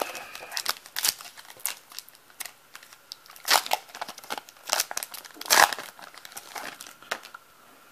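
Foil wrapper of a baseball-card pack being torn open and the cards slid out: crinkling and sharp crackles of the foil, loudest twice in the middle stretch, dying away near the end.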